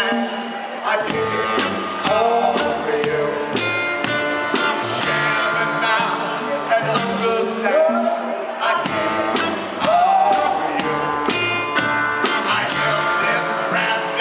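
Live song performance: accordion and acoustic guitar playing together, with singing over them and a steady beat.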